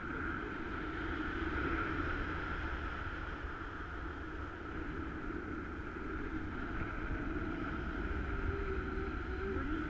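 Steady wind rushing and buffeting over an action camera on a paraglider in flight, with a deep rumble and an even hiss that hold throughout.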